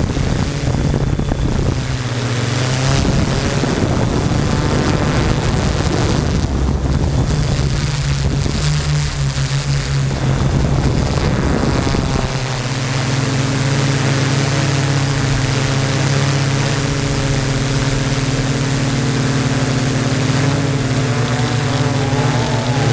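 Yuneec Typhoon G drone's electric motors and propellers humming steadily in flight, picked up by the camera on the drone, over a rushing hiss. The motor pitch wavers in the first half and settles steadier about halfway through.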